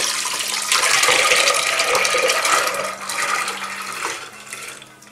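Water and soaked white peas poured from a glass dish into a pressure cooker pot, a steady splashing pour that tapers off over the last second or so.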